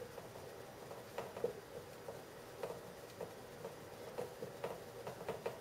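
Dry-erase marker writing on a whiteboard: a faint series of short strokes at an uneven pace.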